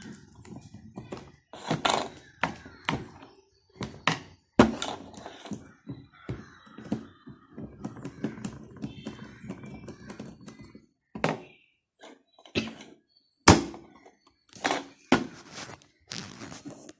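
Irregular knocks, clicks and thunks of hand wiring work: a screwdriver tightening wires into a terminal block, with tools and wires handled on the table and several loud, sharp knocks among them.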